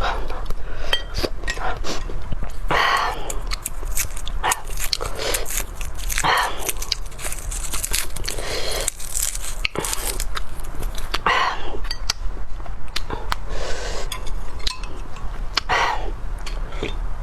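Close-miked mouth sounds of a person eating bone marrow and garlic: chewing and biting, with many sharp clicks and smacks. Four times, a longer rushing mouth noise cuts in.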